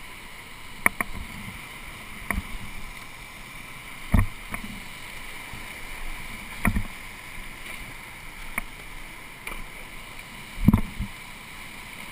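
Whitewater rapids rushing around a kayak, heard close up from the boat, with about six short sharp knocks spread through, the loudest about four seconds in and near the end.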